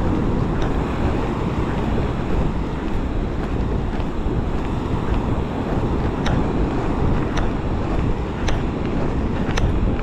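Wind buffeting the microphone in a steady low rumble, with a short tick about once a second.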